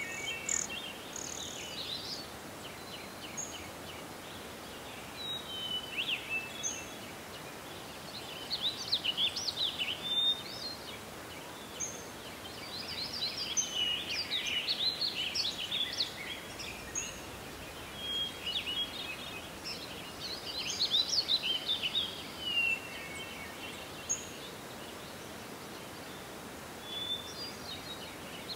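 Several songbirds singing and chirping in repeated bursts of short chirps, trills and whistles, over a steady background hiss.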